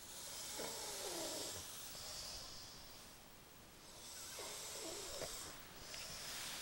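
A man snoring in his sleep: two long, noisy breaths about four seconds apart, each with a wavering pitched tone partway through.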